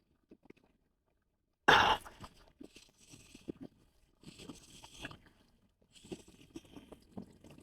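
Strong wind gusts buffeting and rustling against the microphone, with handling clicks. A sudden loud blast hits about two seconds in, then patchy rustling comes and goes.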